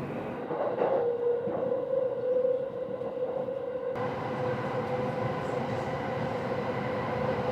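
Electric train running at the platform: a steady motor whine over the rumble of the cars.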